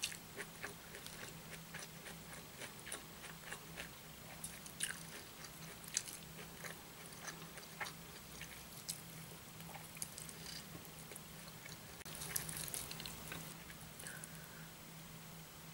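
Close-miked chewing and lip smacking of soft cooked food eaten by hand, a stream of irregular wet clicks. About twelve seconds in comes a short, louder rustling patch.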